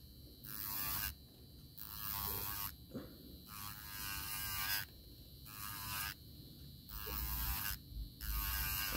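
Electric nail file whirring as its sanding bit grinds lifted nail product off a fingernail; the whine swells and drops back about once a second as the bit is pressed on and eased off the nail.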